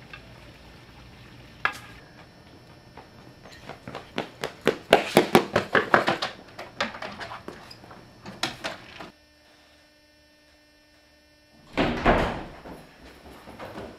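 Quick running footsteps, a fast run of sharp impacts lasting several seconds. Near the end, a door bangs shut with a loud thud in a room.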